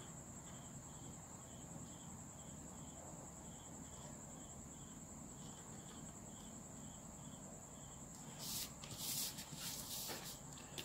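Faint, regular chirping of a cricket, about two to three chirps a second, over a steady high whine. Near the end, paper rustles as the drafting sheet is moved.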